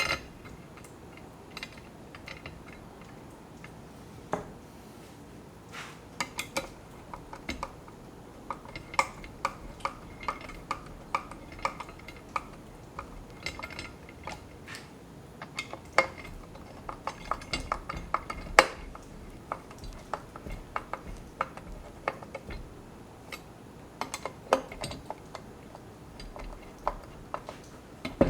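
Irregular light clinks and taps of hand tools and small hardware being handled, some ringing briefly.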